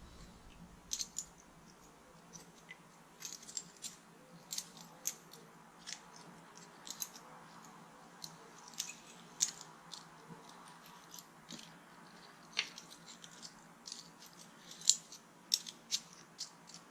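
Scattered light clicks, irregular and a few every couple of seconds, from a small folding cycling multi-tool being handled, its freshly derusted parts moving again.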